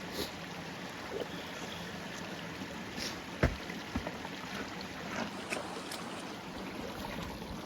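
Steady rush of flowing creek water, with a few short knocks in the middle.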